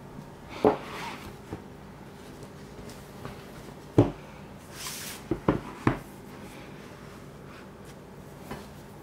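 Thick paperback books being set down and stood upright on a tabletop: a knock just under a second in, another at about four seconds, and a quick run of three knocks around five to six seconds, with soft sliding and rubbing of the covers between.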